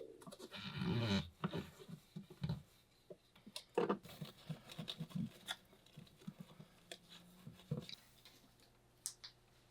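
Small piece of sponge wiping the inside of aquarium glass, with scattered light clicks and knocks from handling.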